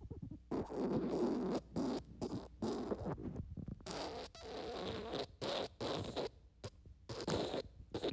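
Wet fart sounds: a string of short and longer spluttering bursts with brief gaps between them.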